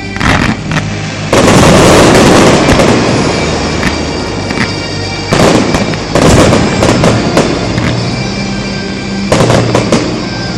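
Starmine fireworks barrage bursting in volleys: a quick cluster of bangs at the start, a long dense run of bursts from about a second in, another run of sharp cracks around the middle, and a short volley near the end. Music plays underneath throughout.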